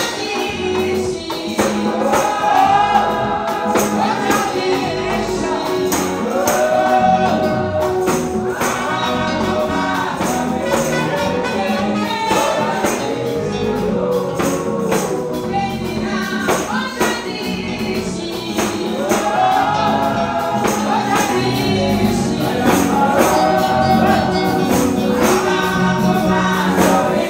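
Live gospel song sung by a woman and a man into microphones and played through a PA, over a steady beat with tambourine.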